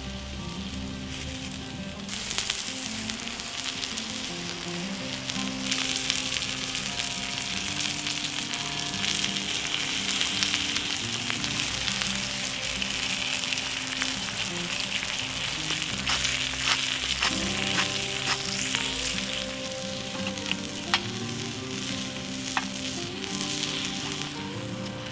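Tomahawk steak sizzling as it sears directly on glowing charcoal embers, a steady hiss that grows louder about two seconds in, with a few sharp pops in the second half. Background music plays underneath.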